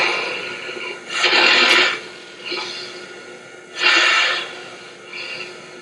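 Heavy snoring: two long rasping snores, each followed by a shorter, softer one, repeating every couple of seconds.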